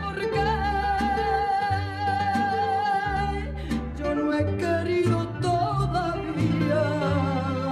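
A woman singing a Latin song live with a band, holding a long note through the first three seconds, over guitar and bass.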